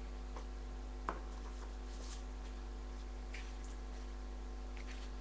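Faint handling of a mouse's retail packaging: a sharp click about a second in, then a few light rustles, over a steady low hum.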